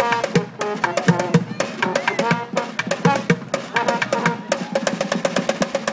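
A group of street drummers playing together, snare and bass drums among them, beating a fast, driving rhythm of dense strokes.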